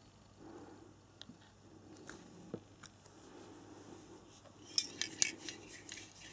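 Handling noise: a few light clicks, then a quick run of sharp clicks and taps about five seconds in, over faint room hiss.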